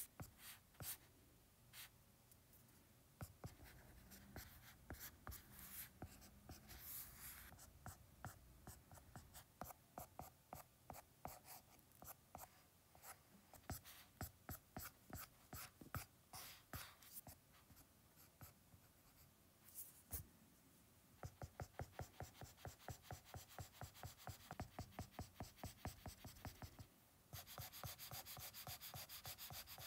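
Stylus tip scratching and tapping across an iPad screen while drawing, faint. There are many short strokes, and about two-thirds of the way in comes a run of quick, even hatching strokes, about three a second.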